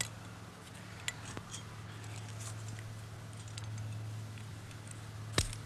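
Faint clicks of climbing hardware as protection is placed in a rock crack, over a steady low hum, with one sharp click near the end.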